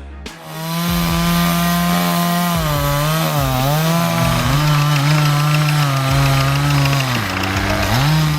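Chainsaw running at high speed while cutting wood. Its pitch dips several times and recovers as the cut loads it.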